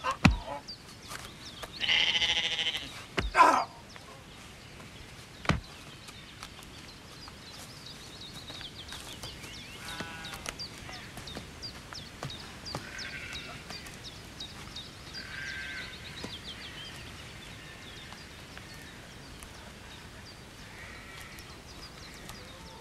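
Sheep bleating: two loud bleats a few seconds in, then fainter bleats every few seconds further off. There is a sharp knock right at the start and another at about five and a half seconds.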